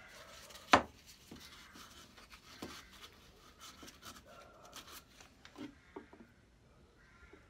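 Quiet handling sounds as a small brush dabs and rubs Danish oil onto a wooden saw handle, with one sharp knock just under a second in and a few faint taps later.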